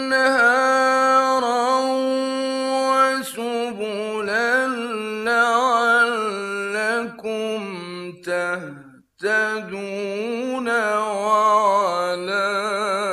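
A man reciting the Quran in a melodic, ornamented chant. He holds one long steady note for about three seconds, then sings rising and falling ornamented phrases, takes a brief breath about two-thirds of the way through, and carries on.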